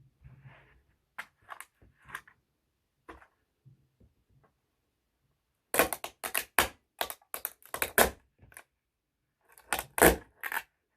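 A small toy truck being crushed. It starts with a few scattered sharp cracks, then a rapid run of cracking and snapping lasting about three seconds, and ends with a final burst of the loudest cracks near the end.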